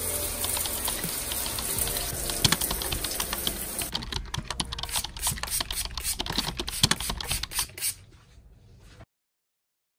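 Liquid sprayed onto a stainless steel tray, the droplets making a fast, uneven patter of small clicks on the metal. Before it there is a steady hiss with faint music. The sound cuts off abruptly about a second before the end.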